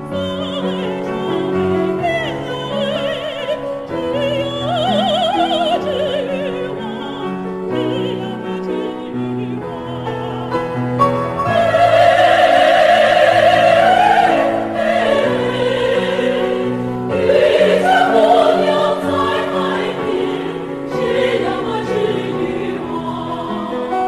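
Women's choir singing in Chinese with piano accompaniment, the voices wavering in pitch on held notes. The singing swells loudest about twelve seconds in and again around eighteen seconds.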